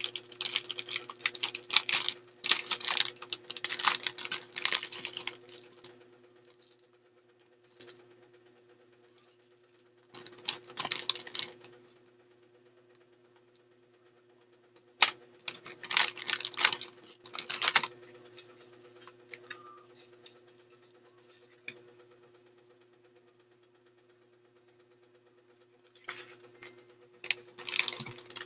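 Spells of rapid clicking and rustling as the kit's packaging and items are handled, each lasting a few seconds with quieter gaps between, over a steady low hum.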